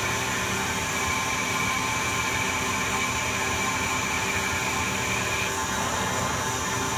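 Harrison Alpha 400T CNC lathe running under programme control, its spindle turning and the tool taking a dry cut along aluminium bar without coolant. A steady machine whir with a few high whining tones, one of which drops out about five and a half seconds in.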